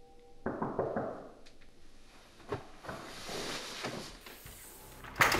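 Bedding and pillow rustling with a few soft knocks as a person turns over in bed, then a sudden louder noise near the end.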